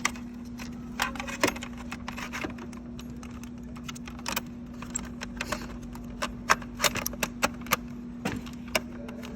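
Irregular light clicks and taps of wires and plastic parts being handled as wiring is worked back into a plastic control panel housing, over a steady low hum.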